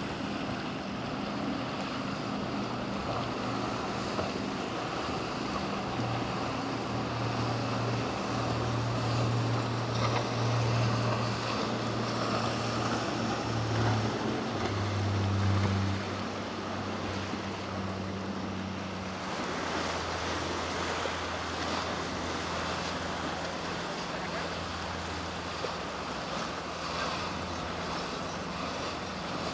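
Motorboat engines humming as boats run through choppy water, with waves and wind noise over them. The engine note steps lower about halfway through.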